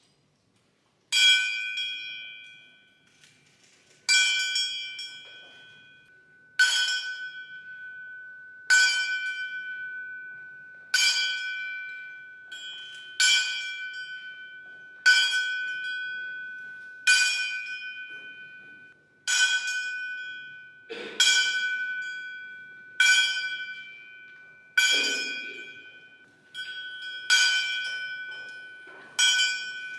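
Small brass hand bell rung again and again, about every two seconds, each stroke a clear high ring that fades before the next; the strokes come a little closer together near the end.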